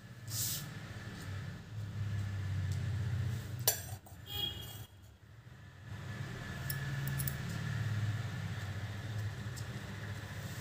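A metal fork clinks once, sharply, about three and a half seconds in, ringing briefly, with a few faint taps later as it is dabbed onto paper. A low steady hum lies underneath.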